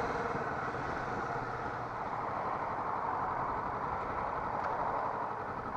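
Steady wind and road noise of a Kawasaki Vulcan S motorcycle on the move, an even rush with no distinct engine note standing out.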